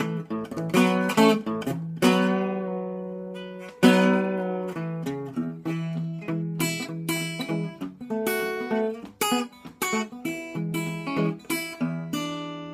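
Solo acoustic guitar picked with a thumbpick, playing a country blues with bass notes and treble runs and a few full chords left ringing. Near the end a final chord rings out and fades.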